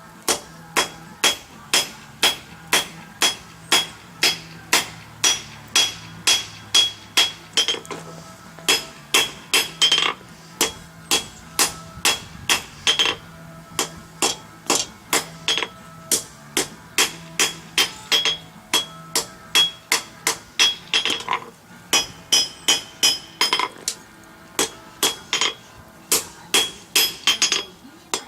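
Blacksmith's hand hammer striking hot steel on an anvil in steady runs of about three blows a second, with brief pauses between runs. Each blow carries a bright metallic ring from the anvil.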